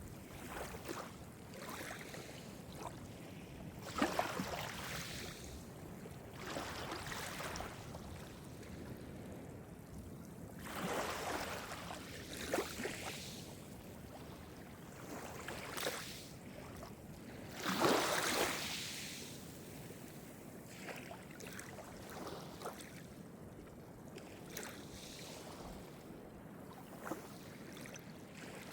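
Calm sea waves breaking and washing ashore, swelling and falling back every few seconds, with one larger wave about two-thirds of the way through.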